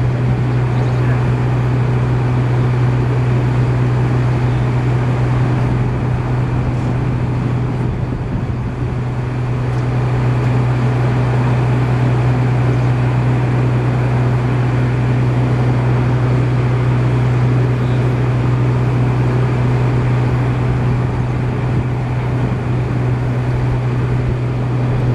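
An engine running steadily at a constant speed, a continuous low drone.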